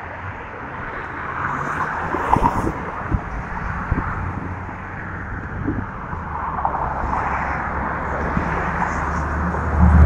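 Road traffic going by on the bridge, the tyre noise swelling as cars pass, with wind knocking on the microphone. A low engine hum builds near the end as another vehicle comes closer.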